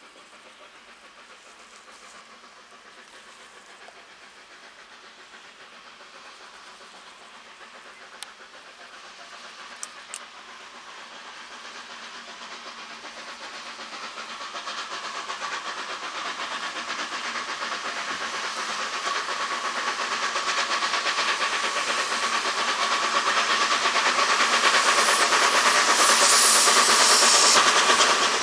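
Steam locomotive working hard as it approaches under heavy smoke, its exhaust growing steadily louder, with loud steam hiss in the last few seconds as it draws close. A few faint clicks come about a third of the way in.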